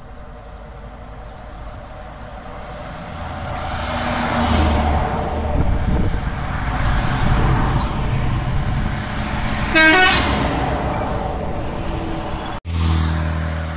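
Heavy tractor-trailer trucks passing close by, their engine and tyre noise swelling as they come past. About ten seconds in, a truck's horn gives one short toot, the loudest sound. Near the end, after a sudden break, another truck's engine hums steadily.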